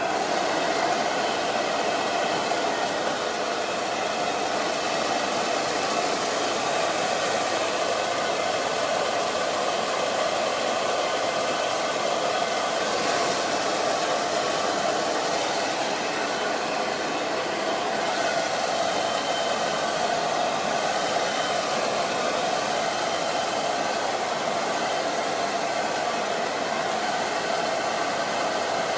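Hair dryer running steadily on a constant setting: a rush of blown air with a steady motor hum, coming up to full speed right at the start.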